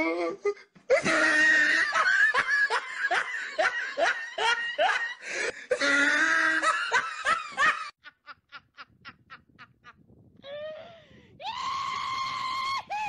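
A group of people laughing hard in quick repeated bursts. Near the end comes a high, held shriek.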